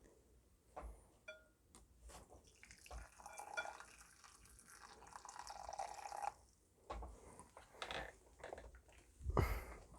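Iced lemon tea being poured into a glass for about three seconds, with a liquid rush and dripping. A few separate knocks follow, the loudest near the end.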